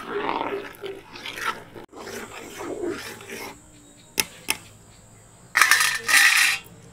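Metal ladle stirring milk in a steel pot: two sharp clinks against the pot, then two short, loud scrapes along it about a second later. The milk is being stirred as it reduces so it doesn't catch on the bottom.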